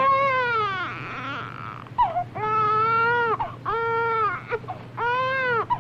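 Newborn baby crying in a string of loud wails, about four, each arching up and dropping off at the end, with short catches of breath between. They are the baby's first cries, the sign that the revived newborn is breathing.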